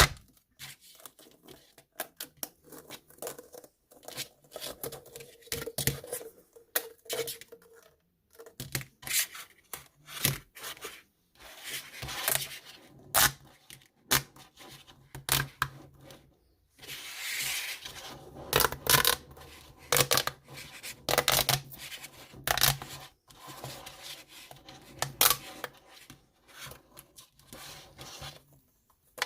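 Plastic fidget toys and their packaging being handled: an irregular run of small clicks, taps and rustles, with a longer tearing or crinkling sound about seventeen seconds in.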